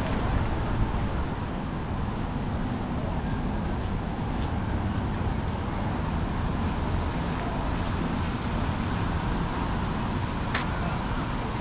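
Steady street traffic noise from passing cars, with one short sharp click near the end.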